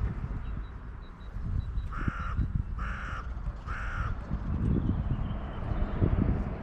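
A crow cawing three times, about a second apart, each caw short and harsh, over a low rumble.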